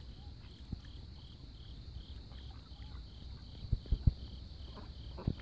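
Insect chirping in an even rhythm, about two pulses a second, with a quick cluster of dull knocks about two thirds of the way in.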